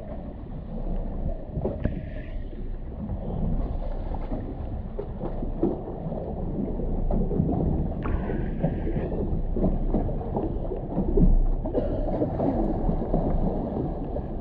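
Twin-hulled tour boat underway at sea: water rushing past the hulls and wind buffeting the camera microphone, with a louder low buffet about three-quarters of the way through.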